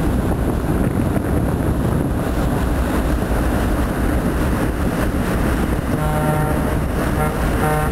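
Tugboat's engine running steadily underway, a constant low rumble. About six seconds in, a horn starts sounding in a series of short blasts.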